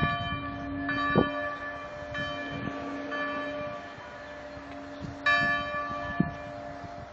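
Church bells ringing: the bells are struck again every second or two, and their tones ring on and overlap between strikes.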